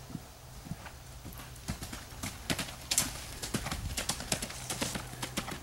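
A horse's hooves cantering on turf, a quick run of thudding strikes that grows louder and closer from about two seconds in.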